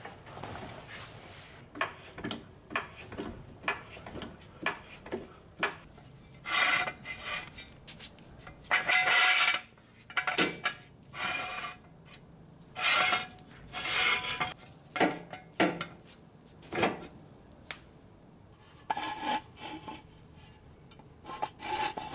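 Metal hand tools clinking and scraping against a car's underbody: a string of sharp clicks and knocks, with several longer scraping rasps.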